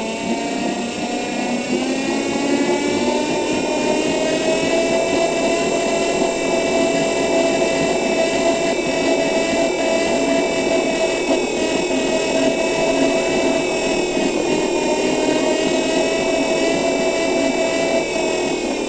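Electric city bus's traction motor whining: the pitch climbs over the first few seconds, holds steady while the bus runs, and drops near the end as it slows, over a steady rumble of road noise.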